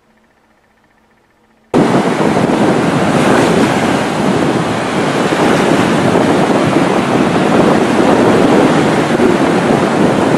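Near silence, then, a little under two seconds in, a sudden start of loud, steady wind rushing over the microphone mixed with surf breaking on the shore.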